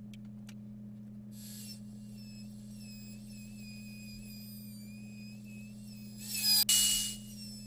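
Router with a flush trim bit running, a high whine that sets in a little over a second in, with a louder rasping cut of about a second near the end as the bit trims the edge.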